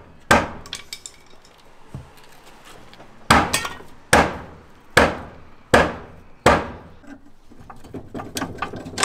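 Hammer blows on the steel steering arm of a Toyota KE70 Corolla, knocking out the old roll centre adjuster. Six sharp, ringing strikes: one right at the start, then after a pause five more in a steady rhythm, a little under a second apart, with small clinks between.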